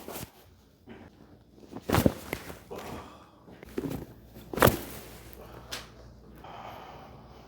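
Several short, sharp joint cracks during a chiropractic adjustment, the loudest about four and a half seconds in.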